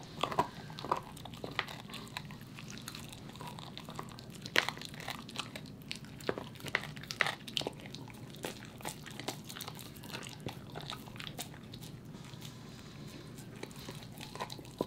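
A corgi gnawing on a raw lamb femur bone: irregular sharp cracks and crunches of teeth grinding and scraping on bone, with chewing in between. The loudest crack comes about four and a half seconds in.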